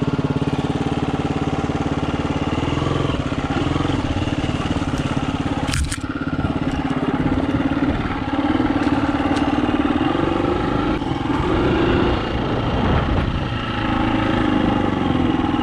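Dirt bike engine running steadily at low revs, then rising and falling with the throttle as the bike rides along a rough dirt trail. A short burst of noise comes about six seconds in.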